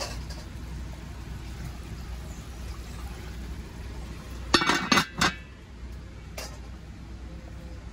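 A domed metal lid is set onto a large pan of simmering chicken about four and a half seconds in, clanking three times as it settles, with a fainter clink a little later. Under it runs the steady hiss of the steaming pot over a wood fire.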